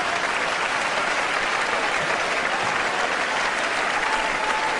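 Large theater audience applauding steadily.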